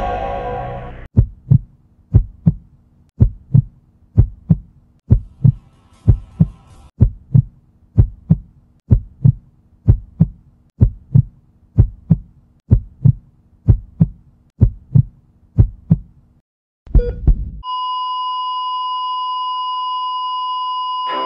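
Sound-effect heartbeat, double low thumps about once a second, over a faint steady hum. It stops, a short low thud follows, and then a steady electronic beep tone holds unbroken, like a heart monitor's flatline.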